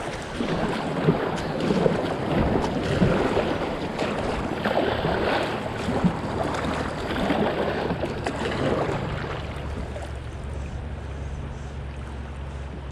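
River water rushing and splashing around a kayak in rapids, with wind buffeting the microphone; the splashing eases over the last few seconds, leaving mostly a low wind rumble.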